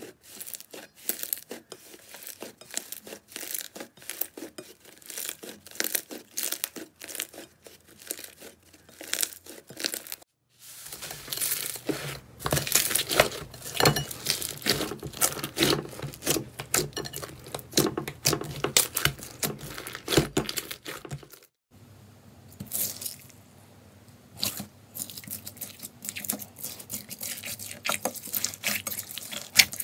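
Hands squeezing, stretching and tearing thick slime in a bowl: a dense, fast run of crackling and tearing sounds. It stops briefly at about ten seconds and again at about twenty-one seconds as the slime changes, from a fluffy pink slime to a blue 'water cotton' slime to a gold slime with crunchy beads.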